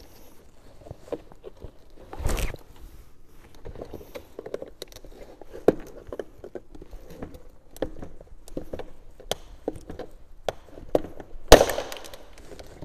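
Scattered plastic clicks and knocks as a wiring loom's clips are prised off the back of a plastic car bumper with a screwdriver, with a thump about two seconds in and one loud sharp snap near the end.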